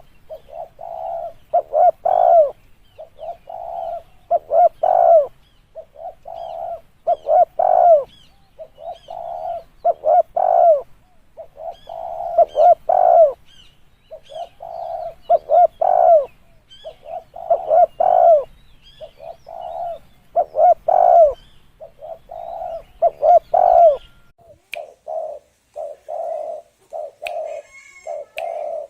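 Spotted dove cooing: phrases of several soft coos, each ending in a louder arched note, repeated about every two to three seconds. Near the end the coos turn shorter and come more quickly.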